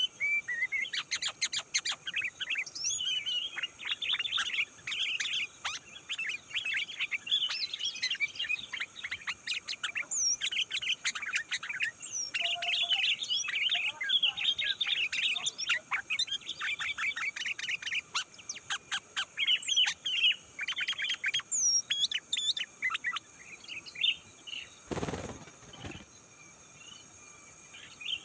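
Sooty-headed bulbul chattering: rapid runs of short, bright chirps and whistled notes that thin out and stop a few seconds before the end, over a steady high hiss. Near the end a brief rushing noise lasts about a second.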